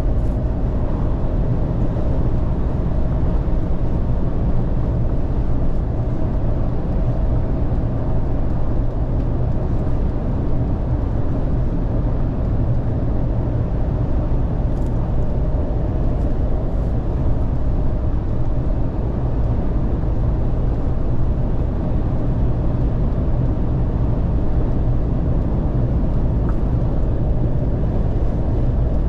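Steady engine drone and road noise heard inside the cab of a new HGV truck cruising at speed. The diesel engine makes a low, even hum over the tyre and wind rumble, with no change in pitch.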